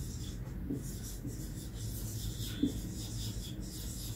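Dry-erase marker writing on a whiteboard: a run of short, faint marker strokes as a word is written out.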